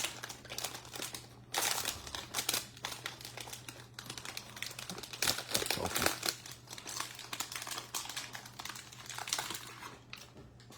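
Wrapper of a Topps Series 1 baseball card pack being torn open and handled, a dense run of crinkling and crackling that dies down near the end.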